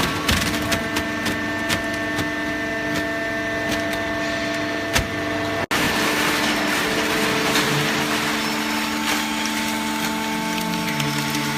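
Hydraulic paper baler running: a steady machine hum with several held tones and scattered clicks and knocks. The sound drops out for an instant a little past halfway, then resumes.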